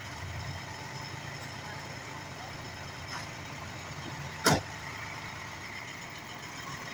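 Nissan Diesel dump truck's diesel engine running steadily while its tipper bed is raised, with a single sharp knock about four and a half seconds in.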